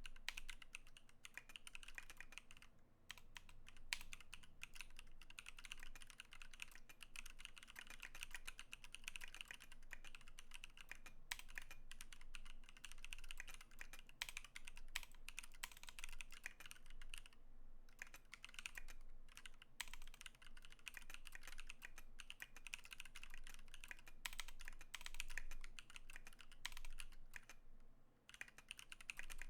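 Steady typing on a KBDfans KBD19x mechanical keyboard with pre-lubed Holy Panda tactile switches: a fast, continuous stream of keystrokes, a little loud, with brief pauses about 3 seconds in, midway and near the end.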